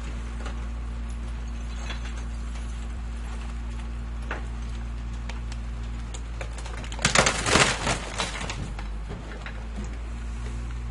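Garbage truck engine running at a steady idle, with a few light clicks and a loud burst of metallic clanking and rattling about seven seconds in.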